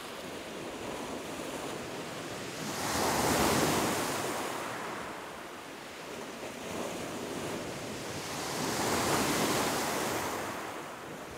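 Waves breaking and washing up a shingle beach, the surf swelling twice, about three seconds in and again about nine seconds in.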